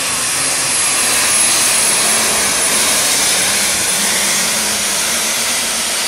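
Pulling tractor's engine running flat out under full load as it drags a weight-transfer sled, a loud, steady, dense noise that swells slightly about a second in.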